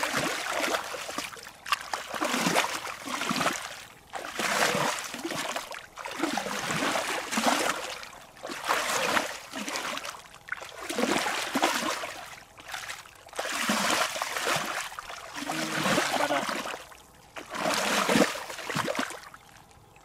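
Bare feet and legs treading through shallow muddy water, each step a sloshing splash, roughly one every two seconds.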